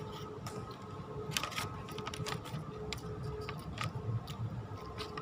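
Close-up eating of ketoprak: a run of short, irregular crunchy clicks from chewing and biting, with a faint steady tone underneath.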